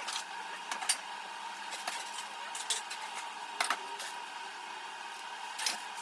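A steady machine hum with several short, light clicks and knocks scattered through it, the loudest about a second in and again near the end.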